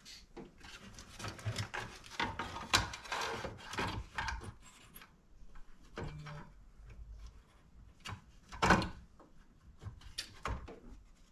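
Side cutters snipping plastic mounting tabs off a car-stereo dash adapter kit, with scraping and handling of the plastic between cuts. Irregular clicks and snaps, the sharpest a little under three seconds in and near nine seconds in.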